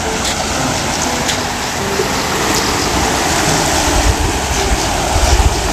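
Brim-full irrigation canal water rushing and churning through a culvert under a small concrete bridge: a steady, loud rush. A low rumble swells about four to five seconds in.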